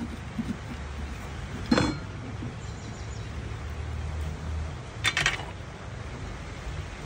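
Seeds and stringy pulp being scooped out of a raw pumpkin with a steel spoon, with two sharp metal clinks: one a little under two seconds in, and a short rattle of clinks about five seconds in.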